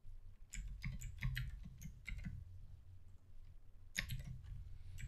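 Typing on a computer keyboard: quick runs of key clicks with soft thuds under them, one run from about half a second in to about two and a half seconds, another starting about four seconds in.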